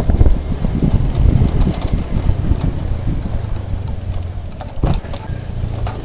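Honda scooter being ridden, its small engine running steadily under gusty wind noise on the microphone. The wind is heaviest in the first couple of seconds. Two short knocks come near the end.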